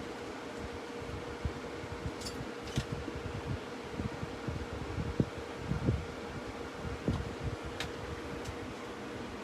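Steady fan-like background hum with a faint constant tone, broken by scattered light knocks and a few sharp clicks as small wooden pieces are handled and set down on the work surface.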